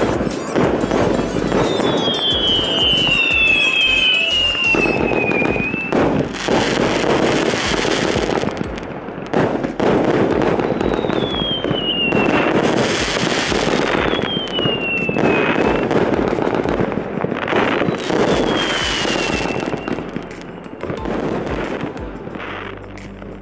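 Consumer fireworks going off in a dense crackle of bangs, with several whistles that fall in pitch.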